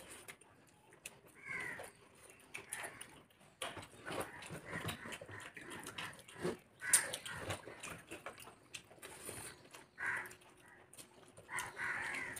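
Two people eating rice and vegetable dishes with their hands: wet chewing and mouth noises with fingers mixing rice on plates, in short, irregular bursts.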